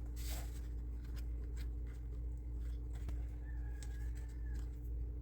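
Faint light clicks and rustles of small model-kit pieces being handled and fitted, over a steady low hum.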